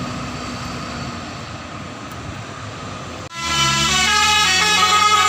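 Road traffic and engine noise for about three seconds, then a sudden cut to a bus's multi-tone telolet basuri horn playing a tune, several pitched notes stepping up and down, much louder than the traffic.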